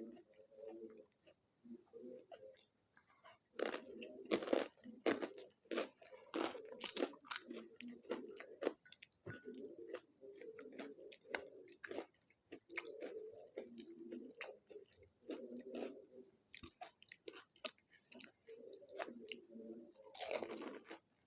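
Chewing and crunching of panipuri, the crisp puri shells cracking between the teeth. The crunches come thickest from about four to nine seconds in, with another loud burst of them near the end.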